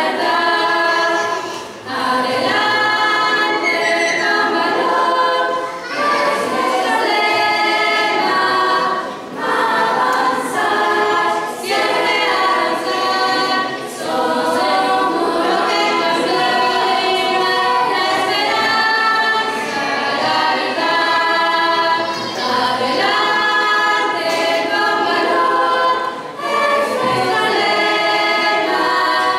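Girls' choir singing a cappella in several-part harmony, the phrases broken by short breaths every few seconds.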